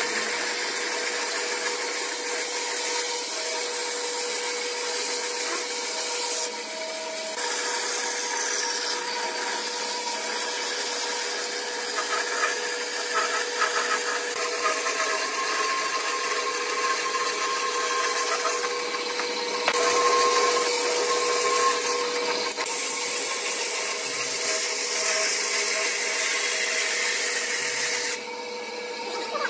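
Bandsaw running with a steady hum while its blade cuts curves through a thick pine block.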